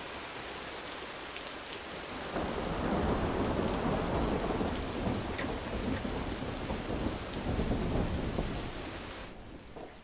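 Steady rain falling, with a long roll of thunder that swells about two seconds in and rumbles on for several seconds. Rain and thunder cut off abruptly just before the end.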